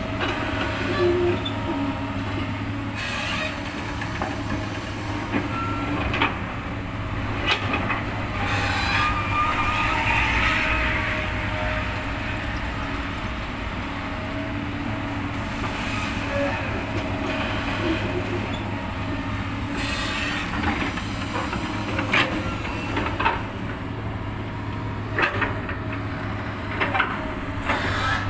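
Excavator's diesel engine running steadily while it digs and loads soil, with scattered sharp metal clanks and short squeaks from the bucket and arm.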